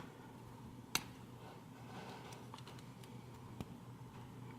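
Small metal clicks of a tool working at the stubborn retaining clip on a padlock's core: one sharp click about a second in and a few fainter ticks.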